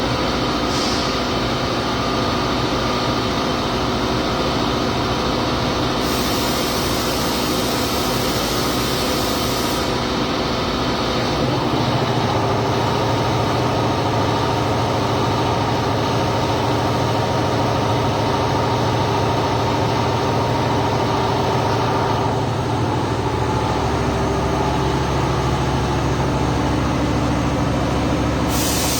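Steady machine noise with several held humming tones over a hiss. The mix shifts a few times: a high hiss comes in from about six to ten seconds, and a deeper hum strengthens around twelve seconds and again around twenty-two seconds in.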